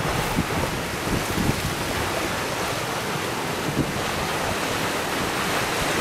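Steady rush of water and spray along the hull of a J80 sailboat sailing fast in rough water, with strong wind buffeting the microphone and a few low thumps.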